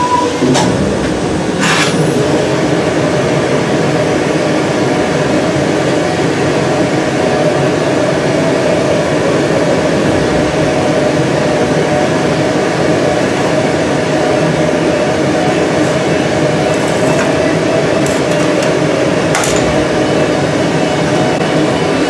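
Steady roar of gas burners and blower from borosilicate glassworking equipment, with a faint steady hum. There are a few brief clicks, two near the start and one near the end.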